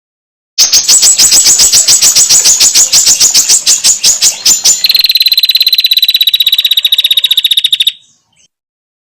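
Female prenjak (prinia) ngetir call: a loud rapid trill of dry ticking notes, about nine a second. It runs for about four seconds and then turns into a faster, higher, more ringing trill that stops abruptly near the end.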